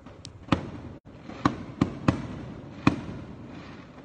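Aerial fireworks bursting: five sharp bangs over about two and a half seconds.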